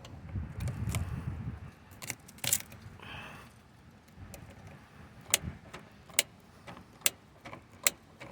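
Scattered sharp clicks and light rattles of hand work on a car door's exposed inner workings, with a low rumble of handling in the first second or so.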